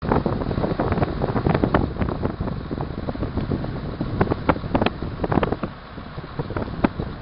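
Gusty wind buffeting the microphone over a truck's engine running while its tipper trailer is raised to dump rubble.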